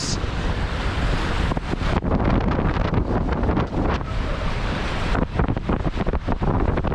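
Heavy wind buffeting the microphone over rushing water and spray from a Tornado catamaran sailing fast, with irregular gusty blasts throughout.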